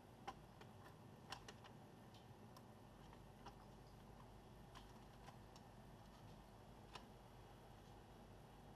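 Faint, irregular small clicks and taps over low room hiss, from laptop parts being handled and seated during reassembly. There are about eight clicks, the loudest a quarter second in and just over a second in.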